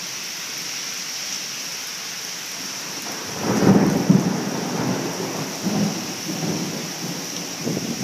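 Heavy rain falling in a steady hiss. About three and a half seconds in, a rumble of thunder begins and rolls on, swelling and fading for several seconds.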